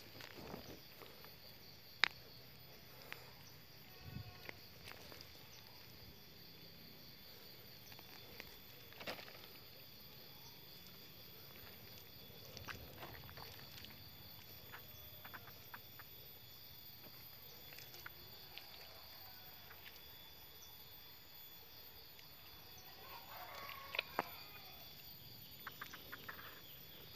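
Faint rustling and scattered clicks of hands digging in soil and leaf litter and handling freshly picked mushrooms, over a steady high-pitched whine. A sharp click about two seconds in is the loudest sound, and a faint animal call comes near the end.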